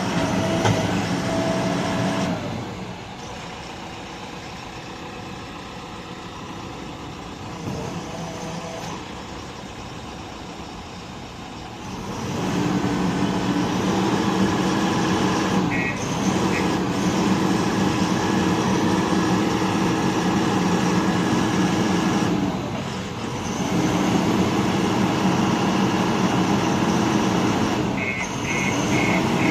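JCB backhoe loader's diesel engine running steadily, quieter for a stretch, then louder again from about twelve seconds in. A few short high beeps come in near the end.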